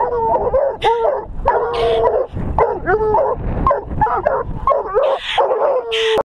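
Several hounds baying, yipping and whining excitedly at a ringtail cat caught in a wire cage trap: overlapping calls whose pitch bends up and down, one after another without a pause.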